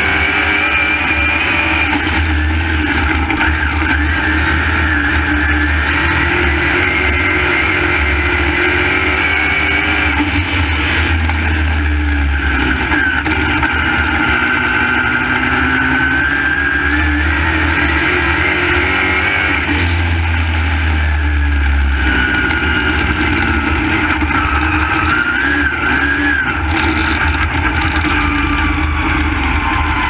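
Crate V8 engine of a dirt late model race car at racing speed, heard from inside the cockpit. It runs loud and steady throughout, its pitch rising and falling every few seconds as the driver gets on and off the throttle.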